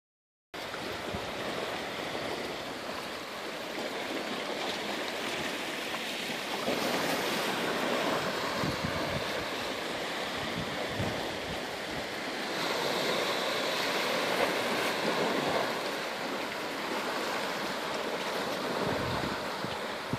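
Sea waves lapping and washing over a rocky shore, a steady rushing wash, with wind buffeting the microphone now and then.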